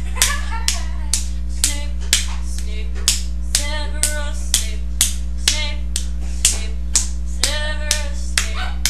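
Finger snaps keeping a steady beat, about two a second, the ticking rhythm of a sung chant, with short sung words in between over a steady low hum.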